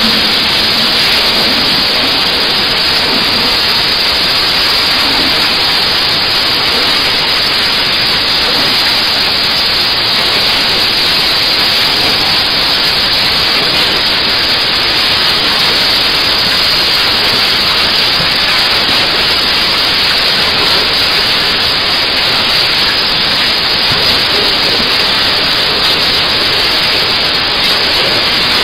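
Automatic onion peeling machine running: a loud, steady hiss without breaks or changes.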